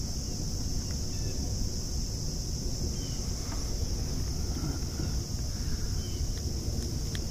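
Steady high-pitched chorus of insects with a low rumble underneath, and a couple of faint clicks near the end.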